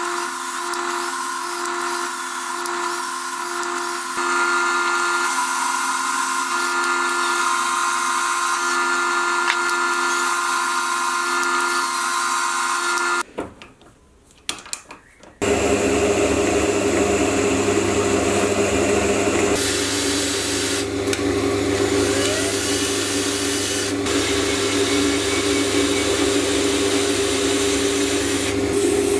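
Metal lathe running with a carbide insert cutting the cold-drawn steel body: a steady machine hum with cutting hiss. About 13 seconds in it goes quiet for a couple of seconds with a few small clicks, then the lathe runs again, boring the inside of the part with a lower, steady hum.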